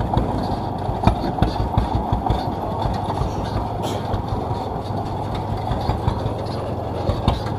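Diesel engine of a homemade grandong cart running steadily under way, with a fast low pulse.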